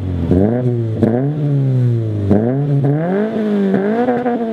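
Toyota 86's flat-four engine revved in a series of quick throttle blips, the pitch jumping up and falling back each time, heard through a single-exit axle-back muffler delete.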